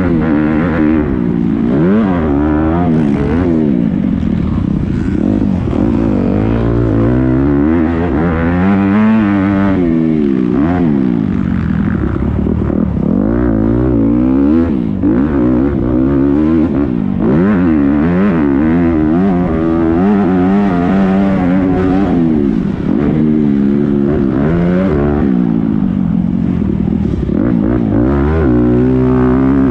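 Motocross dirt bike engine, heard close up from the bike, revving hard and falling back over and over as the throttle is worked and gears are shifted.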